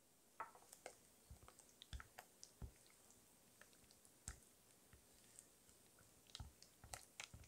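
A spatula stirring a thick cream cheese and yogurt mixture in a glass bowl: faint, irregular clicks and soft squelches.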